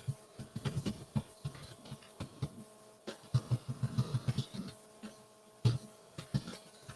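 Typing on a computer keyboard: irregular runs of quick key clicks with brief pauses between them.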